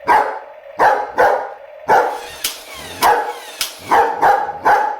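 German Shepherd barking repeatedly, about eight sharp barks in quick succession, at a remote-control toy car it doesn't like.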